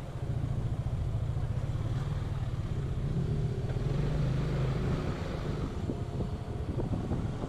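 Piaggio MP3 500 three-wheeled scooter's single-cylinder engine running steadily while riding at low speed, with some road and wind noise.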